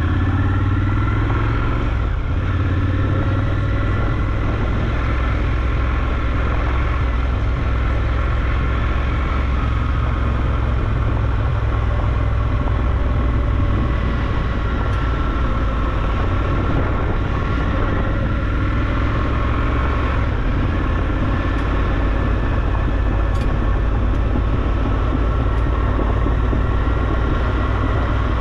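Triumph Scrambler 1200 XE motorcycle being ridden, its parallel-twin engine running at a steady, even pitch.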